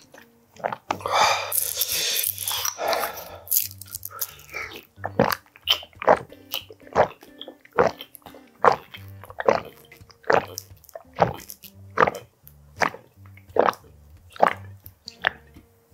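A person gulping from a bottle, one swallow about every second in an even rhythm, over background music. A brief burst of noise comes near the start.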